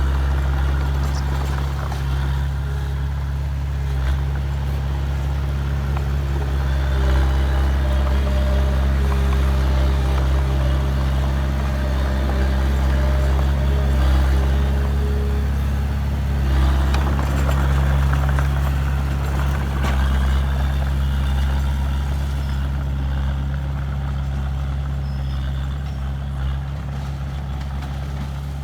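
Heavy diesel engine of earthmoving machinery running steadily, a deep continuous drone that eases slightly near the end.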